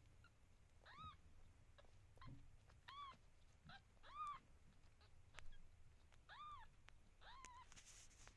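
Newborn Ragdoll kittens mewing while nursing: about five thin, short mews, each rising and falling in pitch, with faint clicks between them, as the kittens jostle for a teat.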